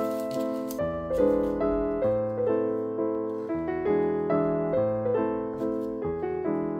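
Background piano music: a gentle melody of struck notes, each ringing and fading, a few notes a second.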